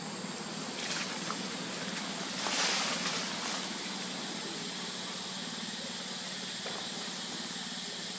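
A brief rustle of dry leaf litter about two and a half seconds in, as a baby pig-tailed macaque scrambles over the forest floor. Under it runs a steady background hiss with a thin high whine.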